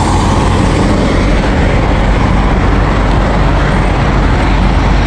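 Steady low rumble of idling diesel semi-trucks, loud and unbroken.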